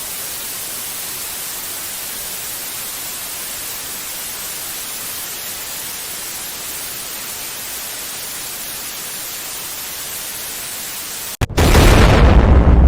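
Steady white-noise static hiss, even and unchanging for about eleven seconds. It cuts out for an instant, and a sudden, much louder, deep noisy burst begins near the end.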